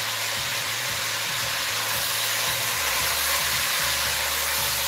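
Lamb pieces and sliced onions sizzling in an enamelled cast-iron pot: a steady frying hiss.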